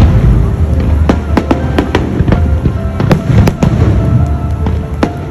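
Fireworks display: many sharp bangs and crackles, several a second, over a continuous low rumble of bursting shells.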